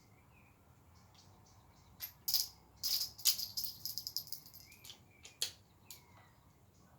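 Smith & Wesson Model 17 revolver being handled while its cylinder lockup is checked: a quick series of sharp metallic clicks and rattles with a light ring, about two to six seconds in.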